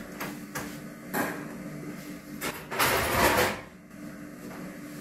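Metal knocks and clanks as a cylinder head is handled and put into a preheating oven, with a longer scraping rattle about three seconds in, the loudest sound. A steady hum runs underneath.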